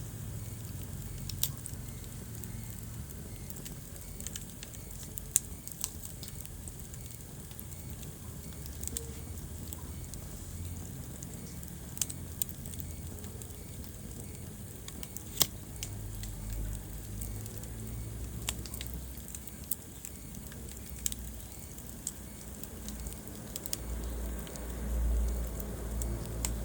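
Wood fire burning in a fireplace: irregular sharp crackles and pops over a steady low rumble of the flames, with a louder swell of rumble near the end.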